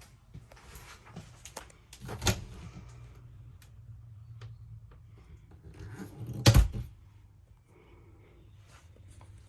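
Doors and cabinet doors inside a travel trailer being opened and shut: two sharp knocks a few seconds apart, with lighter clicks and handling noise between them.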